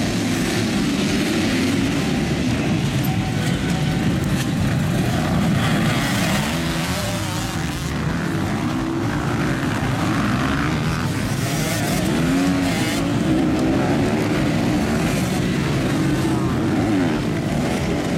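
A pack of motocross dirt bikes accelerating off the start and racing through the first corners. Many engines rev at once, their pitches rising and falling over one another without a break.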